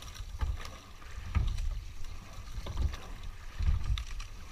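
Coxed four rowing shell under way: water rushing along the hull, with short knocks and low thumps recurring every second or so as the crew rows.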